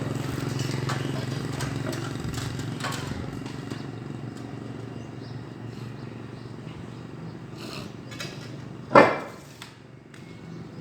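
An engine running at low speed, its hum fading away over the first few seconds, then a single loud knock about nine seconds in.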